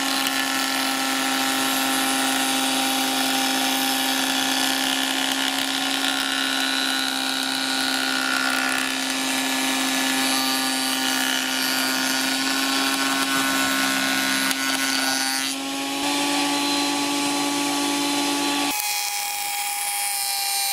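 Parkside PADM 1250 planer-thicknesser running while a board is fed across its jointer cutterhead: a loud, steady machine whine with planing noise. About 19 seconds in the sound thins out, its lower part dropping away while a higher whine runs on.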